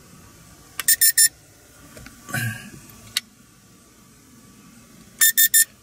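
Handheld infrared thermometer gun beeping as its trigger is pulled to take a reading. There is a quick run of three short, high beeps about a second in, and another run of three near the end.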